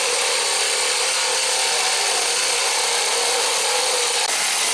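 Power tool cutting through a piece of steel: a loud, steady, harsh hiss with a steady whine underneath.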